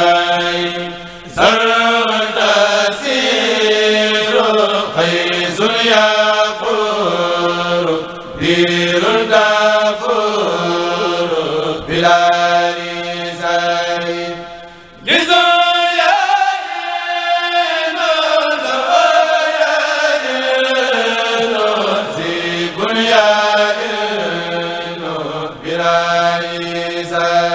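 Male voices chanting a Mouride khassida (Arabic devotional poem) through microphones, in long melodic phrases with short breaks between lines.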